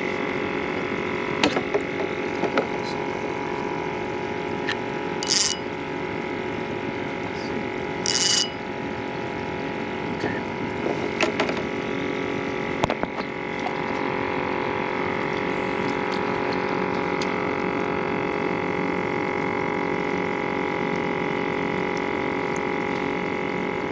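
Small battery-powered bait-bucket aerator pump humming steadily, keeping air going into the live bait bucket. A few sharp clicks and taps and two short hissy bursts come over it as fishing tackle is handled.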